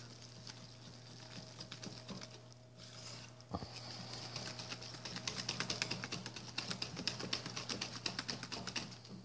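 Wire whisk stirring thick cake batter in a glass bowl: quick, light clicking and tapping of the wires against the glass, growing faster and denser about a third of the way in.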